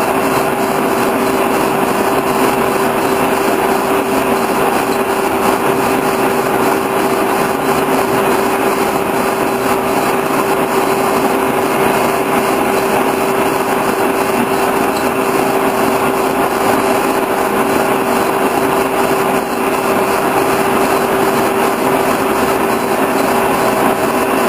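Horizontal boring mill running as a lathe, turning a shaft under a cut: a steady mechanical drone with one steady tone through it.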